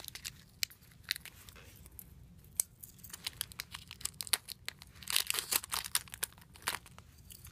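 Clear plastic packaging crinkling and crackling as a bagged bracelet is handled, in scattered crackles with a denser flurry about five seconds in.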